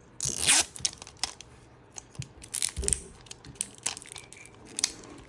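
Plastic wrapping being torn and peeled off a Mini Brands capsule ball: a loud rip about half a second in, then scattered crinkling and small clicks as the wrap comes away.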